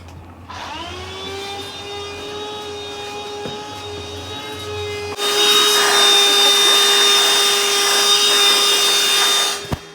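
An electric motor spins up to a steady whine, then grows much louder with a rushing, grinding noise from about five seconds in, and cuts off just before the end.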